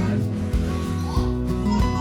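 Background music with sustained notes and a steady bass line.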